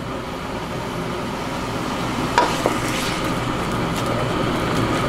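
Marinated pork sizzling in a wok over a gas burner while a wooden spatula stirs it. It is frying in a little water and corn syrup rather than oil. A few knocks and scrapes of the spatula on the pan come in the second half.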